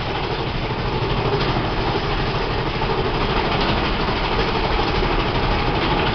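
Mine-train roller coaster cars rumbling and rattling steadily along the track, heard from on board.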